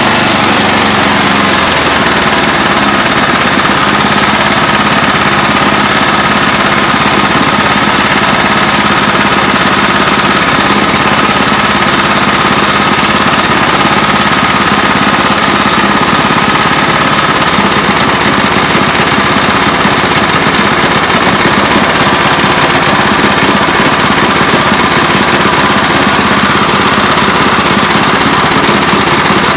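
Murray small engine running steadily with a rapid knock throughout, the engine knock that the owner is showing.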